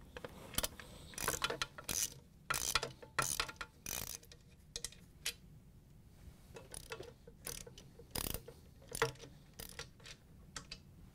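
Socket ratchet with a large Phillips driver bit clicking in short rapid runs as it loosens the tight base screws of a KitchenAid stand mixer. The clicks come thickest in the first half and thin out to scattered ones later.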